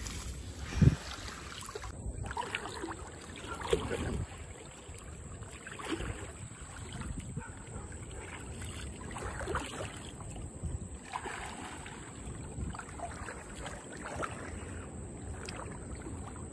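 Shallow water sloshing and splashing as a beach seine net is hauled in by people wading, with wind rumbling on the microphone. A loud low thump comes about a second in.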